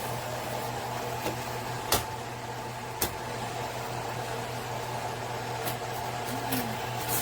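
Steady hum of a ceramic electric hob's cooling fan over an even hiss, as eggs fry in a stainless steel pan on it. Two sharp clicks stand out about two and three seconds in, with a few fainter ones near the end.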